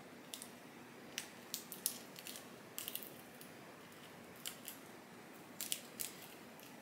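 Faint, scattered short crackles and clicks of tape and plant leaves being handled as a trailing vine is pressed and taped to its support board.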